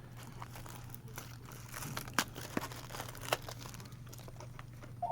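Trading card pack wrappers crinkling and cards being handled, with scattered soft clicks and rustles.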